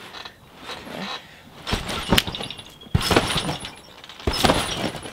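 Trampoline mat and springs creaking and jangling with each bounce of a jumper, three bounces about a second and a quarter apart starting nearly two seconds in, the last carrying him into a flip.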